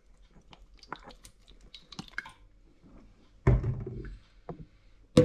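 Olive oil poured from a glass bottle into an empty stainless steel pot, with faint trickling and drips. A dull thunk comes about three and a half seconds in, and a sharp knock just before the end.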